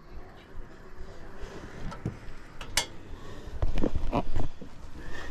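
A few scattered clicks and knocks of roof verge tiles being handled and fitted, the loudest cluster about four seconds in, over a low rumble.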